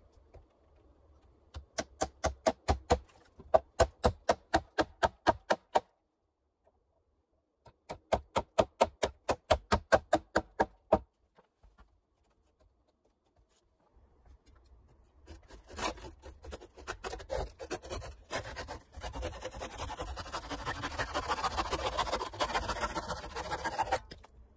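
A hammer rapping quickly on an old wooden beam, about five blows a second, in two runs of a few seconds each. From about halfway on, a hand saw cuts through a weathered log with steady back-and-forth strokes.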